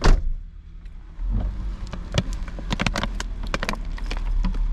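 A sharp thump, then a string of clicks, knocks and rustles as seats and belongings are shifted around inside a car, over a low steady hum.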